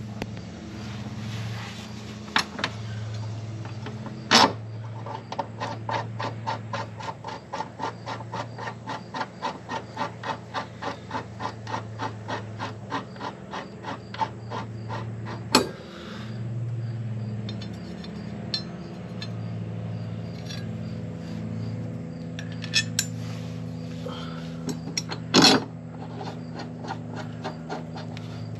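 Rhythmic rasping strokes, about two a second, from hand work on the cutting blade under an Exmark push mower's deck, with a few sharp metal clinks, two of them loud.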